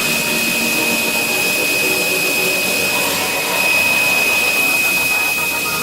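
CNC gantry drilling-milling machine running, a steady machine noise with a high spindle whine held throughout.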